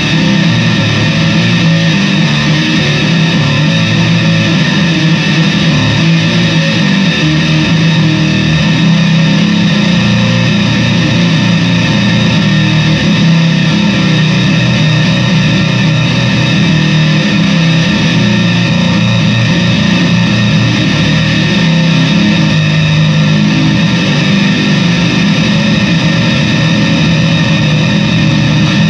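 Fender Squier Bass VI six-string bass played through fuzz and distortion pedals: a loud, thick, sustained distorted tone that rings on with no breaks.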